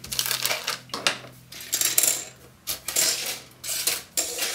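Grey injection-moulded plastic model-kit sprues being handled and laid on a table, with light plastic clattering and rustling in several short bursts.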